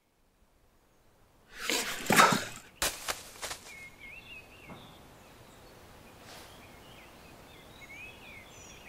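A loud, noisy burst about a second and a half in, then a few sharp clicks, followed by birds singing in short warbling phrases over a faint steady outdoor hiss.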